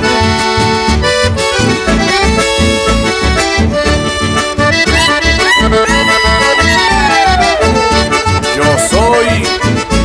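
Chamamé played by a band: accordion carrying the melody in held, stacked notes over a steady low beat, with a long falling glide in pitch about five seconds in.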